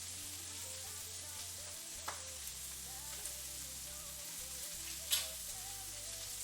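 Food frying in a hot pan, a steady sizzle, with a light tap about two seconds in and a sharper click about five seconds in.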